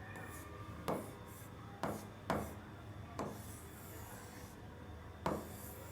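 Room tone with a low steady hum and five faint, short clicks or knocks spaced irregularly.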